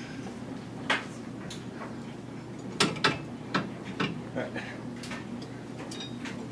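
Scattered metallic clinks and knocks of hand tools and suspension hardware being handled, several in quick succession around the middle.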